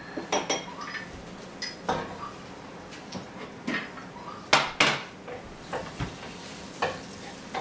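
Kitchen utensil clinking and knocking against a wok and dishes: a scattering of sharp clicks, some briefly ringing, with the two loudest knocks close together about four and a half seconds in.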